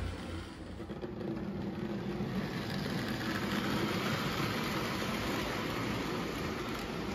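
O gauge Lionel model train running on three-rail track: a steady rumble of motor and wheels that grows louder about two and a half seconds in as the train passes close by.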